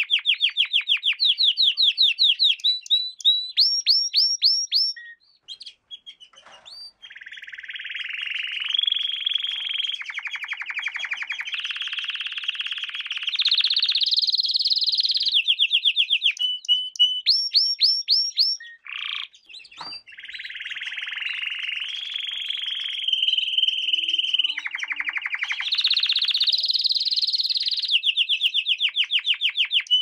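Domestic canary singing a long song of fast trills and buzzing rolls, switching to a new phrase every second or two, with two short breaks.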